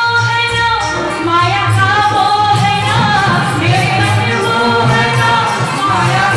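A woman singing a Hindi devotional song (Shyam bhajan) through a PA system, with instrumental accompaniment and a steady percussion beat.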